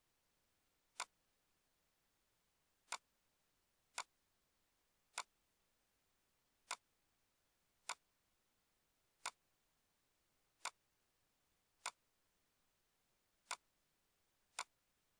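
Computer mouse button clicking, eleven sharp single clicks spaced unevenly about a second apart, over near silence.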